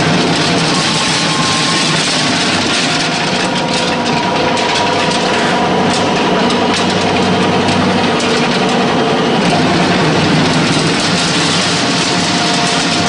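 Horizontal feed pellet mill running under load, pressing feed into 8 mm pellets. It makes a loud, steady machine hum, with several held tones over a dense rushing noise.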